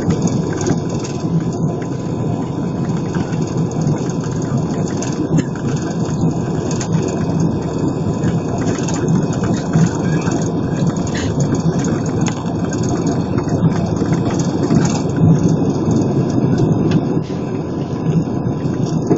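Airbus A320 jet engines at takeoff thrust, heard from inside the cabin over the wing: a loud, steady roar with a thin steady whine, through the takeoff roll to rotation near the end.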